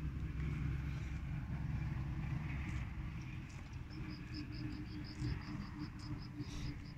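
A steady low rumble. About halfway through, a high, rapid chirping trill of about six pulses a second starts up.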